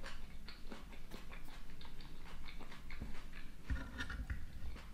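Close-miked chewing of soft seafood and salad: irregular wet mouth clicks and smacks, with a louder mouth sound about four seconds in.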